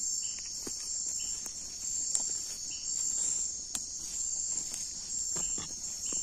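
Steady high-pitched trilling chorus of night insects, with short separate chirps now and then and scattered clicks.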